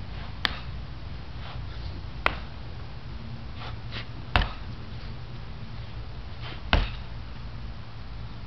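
A steady low rumble with four sharp clicks spread about two seconds apart, the last one carrying a dull thud, and a few fainter ticks between them.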